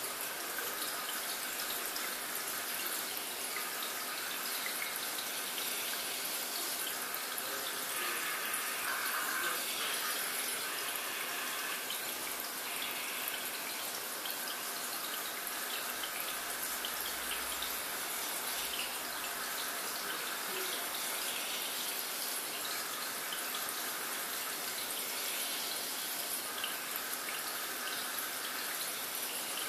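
Water in an aquarium trickling and splashing steadily.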